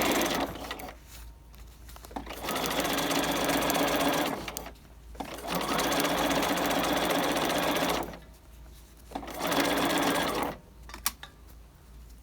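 Sewing machine stitching a straight seam at a standard 2.5 stitch length. It runs in four spells of one to three seconds, stopping briefly between them, and a couple of clicks follow about eleven seconds in.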